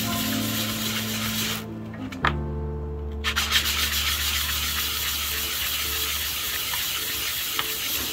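A small cast sterling silver pendant being rubbed back and forth by hand on sandpaper, a continuous scratchy hiss. It stops for about a second and a half roughly two seconds in, then resumes. Soft background music with held chords plays underneath.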